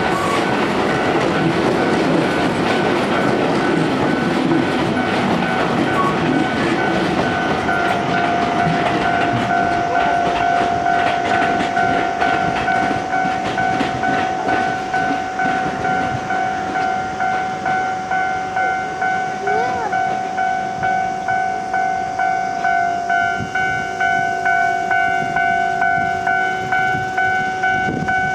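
Keio electric commuter train running over the rails at a level crossing, rumbling with wheel clatter that dies away about ten seconds in. The crossing's warning bell keeps ringing in a steady, regular rhythm throughout.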